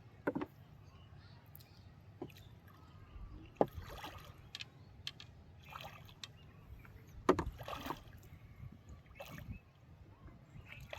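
Water sloshing and splashing with scattered sharp knocks and thumps, the loudest a little past three seconds in and again past seven seconds, during river fishing.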